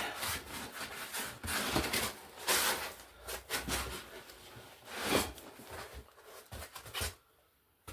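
Cardboard box and packaging being handled and pulled out: a quick run of rustles, scrapes and knocks that goes quiet near the end.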